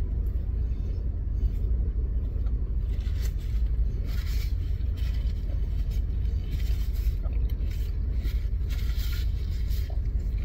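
Steady low rumble inside a parked car's cabin, with short bursts of paper rustling from a burger wrapper and napkin a few times in the second half.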